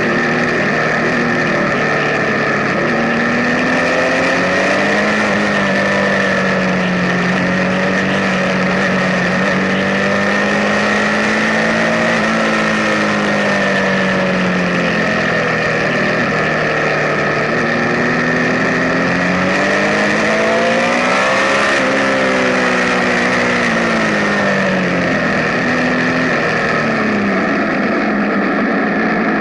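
Benelli 1130 TnT Café Racer's three-cylinder engine running under way, its pitch rising and falling gently with the throttle. It climbs to a peak about twenty-one seconds in and drops again.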